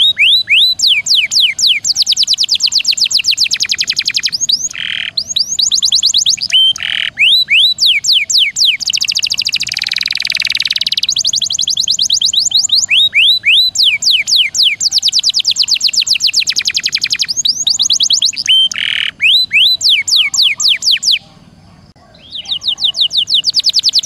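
Domestic canary singing long, fast trills (rolls) of rapidly repeated sweeping notes, broken by short pauses and a few brief held notes, with a break of about a second near the end.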